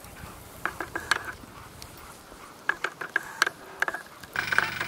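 Sled dogs yipping and barking in short, high calls that come in two clusters. A louder steady noise with a low hum cuts in near the end.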